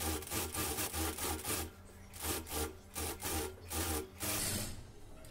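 Sewing machine stitching slowly through thin fabric in two short runs of rapid rasping strokes with a low motor hum. It stops a little after four seconds in.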